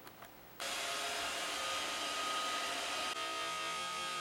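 An electric motor whirring steadily with a high whine, switching on abruptly about half a second in; its sound changes slightly about three seconds in.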